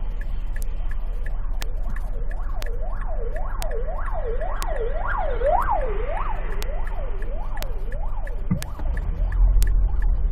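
An emergency vehicle's siren wailing up and down about twice a second, growing louder toward the middle and then fading, over a steady low rumble of engine and road noise.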